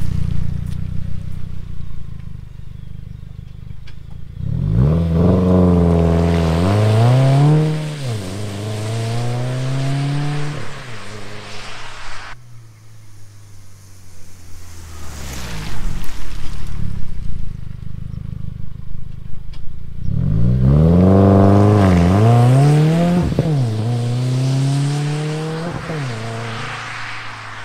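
Subaru WRX turbocharged flat-four through a Tomei catback exhaust: idling, then two light acceleration pulls. In each pull the pitch climbs, drops once at an upshift, climbs again and then falls away as the throttle eases. The second pull fades near the end as the car gets farther off.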